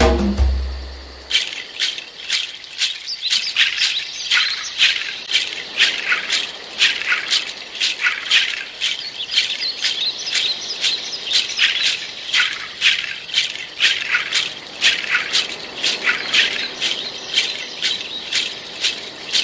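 A dry rattling, shaker-like sound in short strokes, a few a second, after a low musical bass cuts off about a second in.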